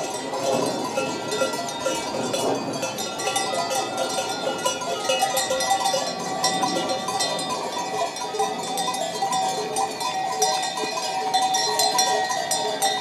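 Many bells worn by a moving flock of ewes clanking and jangling continuously, a dense mix of ringing notes at many different pitches.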